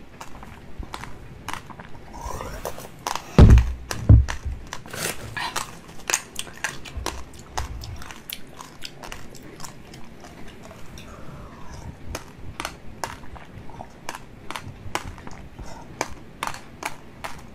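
Close-up wet mouth sounds of sucking and chewing jelly, a steady run of small clicks and squelches. Two loud low thumps come about three and a half and four seconds in.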